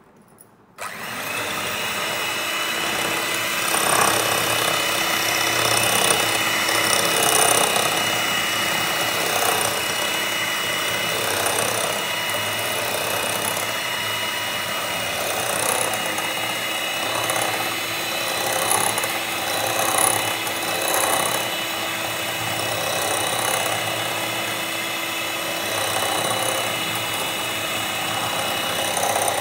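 Inalsa electric hand mixer switched on about a second in and then running steadily at low speed, its beaters whipping a mix of instant coffee, sugar and water in a ceramic bowl.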